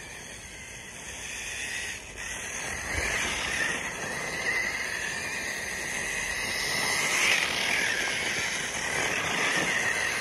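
Traxxas TRX-4 RC crawler with a Hobbywing Fusion Pro 2300kV brushless motor on a 2S battery, driving through dry snow. Its motor and drivetrain whine, swelling and falling with the throttle, loudest about three seconds in and again near seven seconds.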